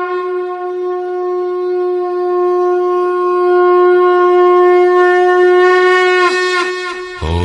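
Conch shell (shankh) blown in one long, steady horn-like note with a strong overtone ladder; near the end the pitch dips and wavers a few times as the note dies away.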